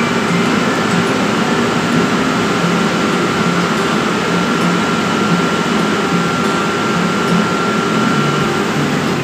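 Steady, loud rushing machine noise, with a faint steady high whine that stops near the end.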